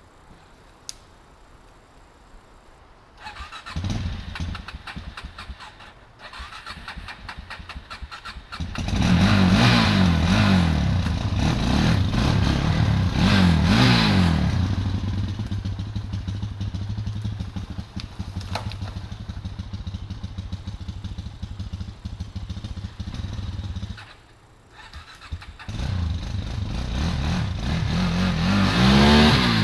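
Suzuki LT-Z400 quad's single-cylinder four-stroke engine started and revved in rising surges. It catches about three seconds in, falters and picks up again, runs with several revs, cuts out briefly, then starts and revs up once more near the end.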